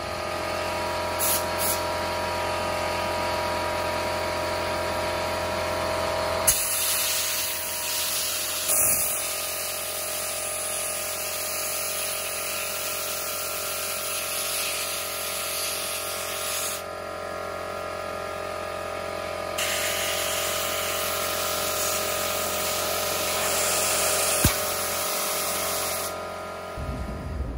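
Compressed air hissing from an air-compressor blow gun whose nozzle is forced between a stuck rubber handlebar grip and the bar, blowing the grip loose so it can slide off. The hiss carries a steady whine and grows and fades several times as the nozzle is worked around.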